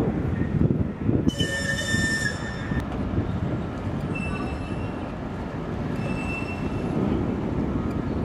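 Steady low rumble of wind and harbour machinery around a destroyer and her tug. About a second in, a loud high-pitched squeal with overtones lasts about a second and a half, followed later by two fainter thin whistling tones.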